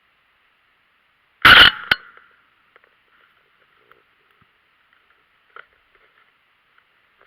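A single loud, sharp bang with a short tail about a second and a half in, followed by a smaller click; a faint steady high buzz runs underneath.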